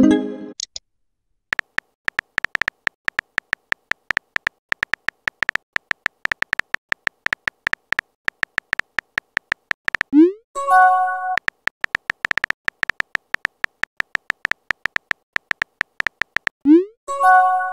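Texting-app sound effects: rapid, steady keyboard-typing clicks as a message is typed, broken about ten seconds in and again near the end by a rising whoosh and a short chime of a few notes as each message is sent.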